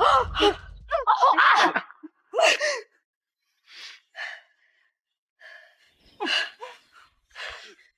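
Grunts, strained cries and sharp gasps from people fighting hand to hand. A cluster of short effortful cries comes in the first three seconds, then breathy gasps at intervals.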